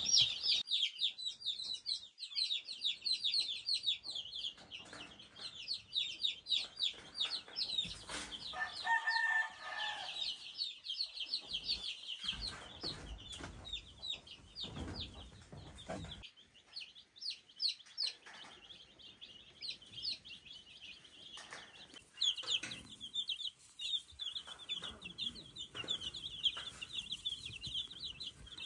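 A crowd of baby chicks peeping constantly in rapid, high-pitched peeps. A lower, drawn-out chicken call sounds once about nine seconds in.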